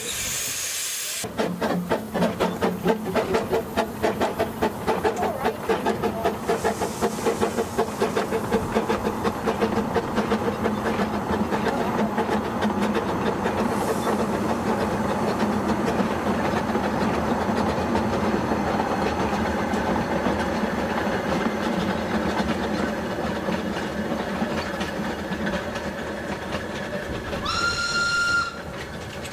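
Narrow-gauge steam locomotive, the Garratt K1, running past hauling its coaches, with rapid exhaust beats and steam hiss. A short, single-pitched steam whistle blast of about a second comes near the end.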